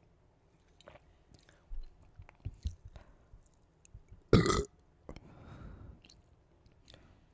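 A person burping: one loud, short burp a little past halfway, after a few small mouth clicks and low gulping sounds, followed by a soft breathy exhale.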